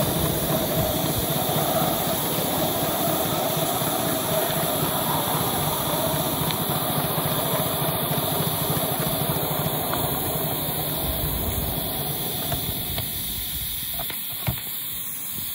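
5-inch gauge Polly Trojan coal-fired live-steam locomotive with a Kordina exhaust, running along with a steady noise and a fast low beat of exhaust and wheels. About two-thirds through the running noise dies away, leaving a steam hiss, with one sharp click near the end.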